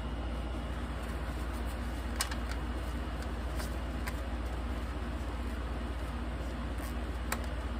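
Steady low hum of an electric box fan running, with a few faint ticks and rustles from hands wiping the doll's skin with a paper towel.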